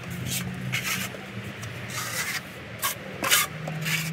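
Plastering trowel spreading the first coat of wet stucco onto a wall: a quick series of short scraping strokes, roughly two a second, over a low steady hum.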